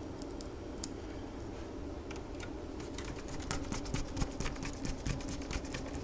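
Hand screwdriver driving small screws back into the metal chassis of a POS terminal: a run of light, irregular clicks and ticks that come thicker from about halfway through.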